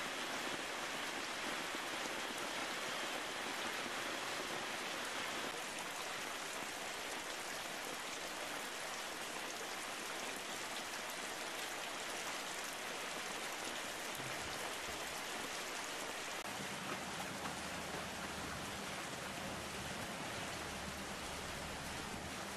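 Heavy rain falling, a steady even hiss. A faint low hum comes in about two-thirds of the way through.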